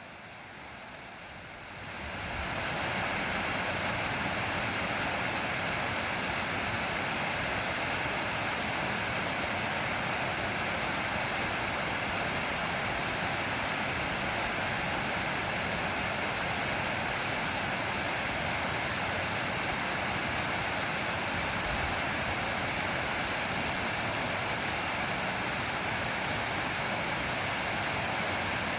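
Mountain valley stream, water rushing steadily, fading in over the first two seconds.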